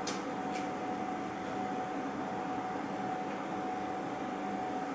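Room tone: a steady hum and hiss with a faint steady tone through it, and two faint clicks within the first second.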